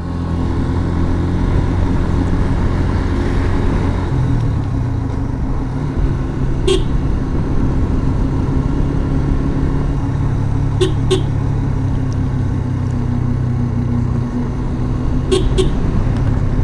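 Yamaha FZS V3 motorcycle's single-cylinder engine running steadily under way, with short horn toots: one about seven seconds in, then a quick double toot twice more.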